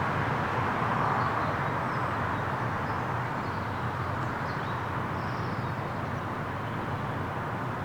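Steady low rumble and hiss that eases off slightly, with faint bird chirps over it.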